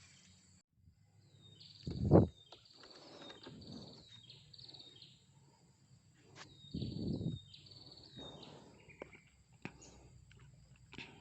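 Small birds chirping in quick series of short, high notes, with two dull thumps, the first and loudest about two seconds in and the second about seven seconds in.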